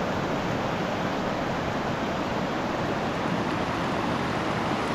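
Suiattle River rushing, a steady, even sound of flowing water.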